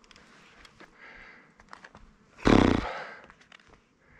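A rider's short, loud grunt of effort about two and a half seconds in, among light clicks and rattles from the mountain bike on the dirt trail.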